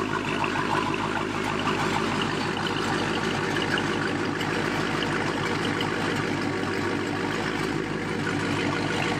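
A vehicle engine idling steadily, with no revs.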